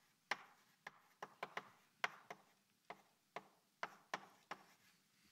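Chalk tapping on a blackboard as words are written: a faint, irregular string of short sharp clicks, about two a second.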